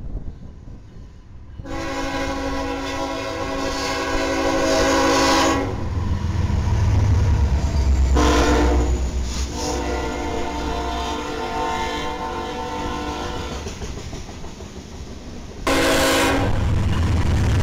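BNSF freight locomotive's air horn sounding over the deep rumble of the passing train and its covered hopper cars. There is a long blast about two seconds in, a short one around eight seconds, then another long blast. Near the end the horn comes in again, louder.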